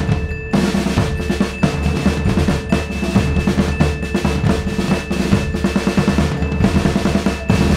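Background music with a driving drum beat over steady held tones.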